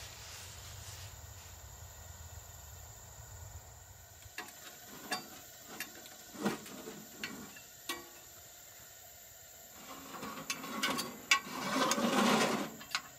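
Scattered light metal clicks and knocks from a griddle and utensils on a camp stove. Near the end comes a louder clatter of scraping and clanking, with one sharp knock, as the griddle is lifted and turned around on the stove's grate.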